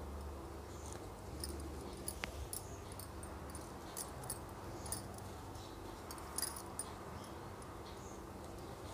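Faint, irregular clicks and ticks of a crochet hook working wool yarn into double crochet stitches, over a steady low hum.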